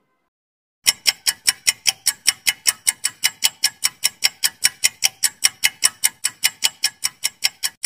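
Countdown-timer clock-tick sound effect: rapid, even ticking, about four to five ticks a second, starting about a second in after a brief silence.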